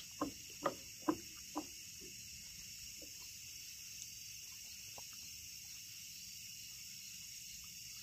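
Crickets chirping steadily in the background, with a few short, soft sounds in the first two seconds.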